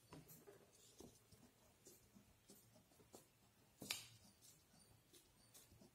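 Faint pencil scratches and light taps on paper as a word is written, with one slightly louder tap just before four seconds in.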